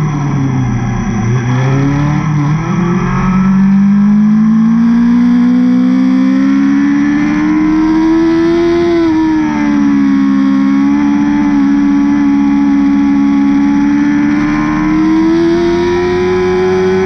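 2017 BMW S1000RR inline-four with an Akrapovic exhaust, heard onboard on the track. Its revs fall to a low point about a second in, then climb steadily under throttle. The pitch dips briefly about nine seconds in and then holds high, creeping upward to the end.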